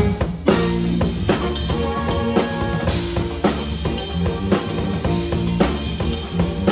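Drum kit played in a busy groove of bass drum, snare and rimshots over a backing track with a moving bass line, with a strong accent about half a second in.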